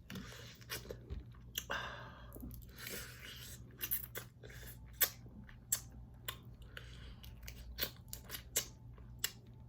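Close-up eating of a seafood boil with snow crab legs: chewing and crunching, with many short sharp clicks and cracks scattered throughout.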